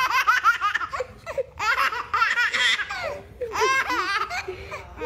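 A baby laughing hard in three bouts of quick, high-pitched belly laughs.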